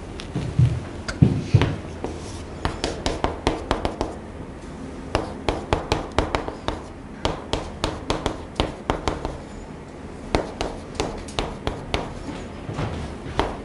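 Chalk writing on a chalkboard: quick runs of sharp taps and short scratches as the letters are stroked out, with a few low thumps in the first two seconds.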